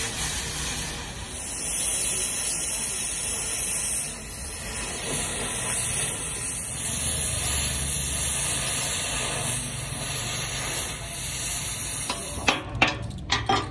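Oxy-fuel cutting torch hissing steadily as it cuts through the steel plate of an excavator boom. Near the end come a few sharp clicks or knocks.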